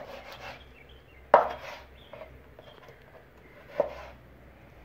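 Kitchen knife cutting raw meat on a wooden cutting board, the blade knocking sharply on the board three times, loudest about a second and a half in.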